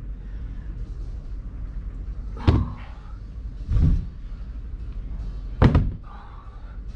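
Dumbbells set down on a rubber gym floor during renegade rows: three thuds about a second and a half apart, the middle one duller and longer.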